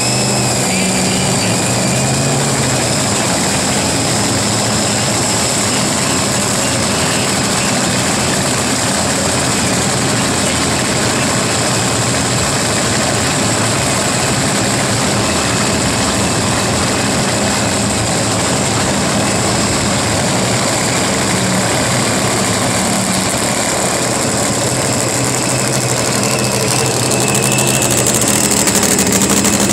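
Drag race car engine idling, a loud and steady mechanical rumble, swelling slightly near the end.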